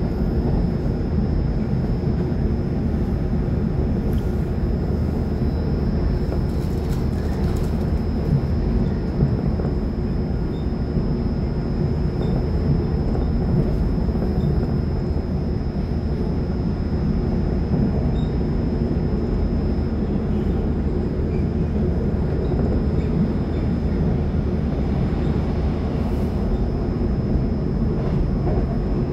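Cabin noise inside a moving Taiwan Railway EMU700-series electric local train (EMU729+EMU730): a steady rumble of wheels on rails at running speed, with a faint steady high-pitched whine.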